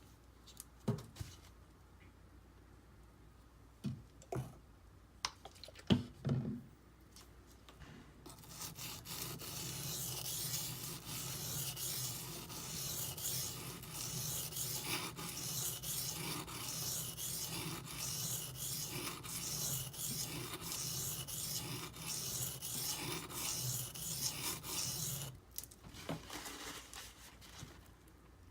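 D2 steel blade of a Benchmade Griptilian stroked back and forth on a coarse 240-grit silicon carbide benchstone: steady rhythmic scraping strokes, raising a burr on the edge. A few short knocks come in the first several seconds, and the scraping stops near the end.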